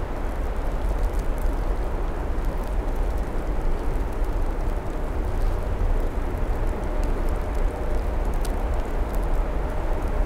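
EP1-series electric locomotive hauling a passenger train, approaching with a steady low rumble of wheels and running gear. A faint steady hum joins in near the end.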